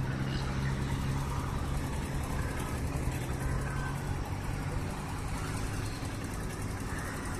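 A motor vehicle running: a steady low engine hum with road noise, the hum weakening about five seconds in.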